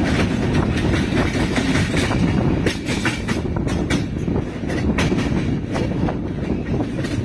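Express passenger train running along the track, heard from the side of its coach: a steady rumble of wheels on rail with irregular sharp clicks and clacks as the wheels cross rail joints.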